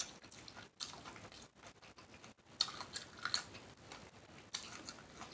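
Close-up eating sounds: chewing with wet mouth smacks and soft clicks, coming in small clusters, with a few sharper ones about a second in and around three and five seconds in.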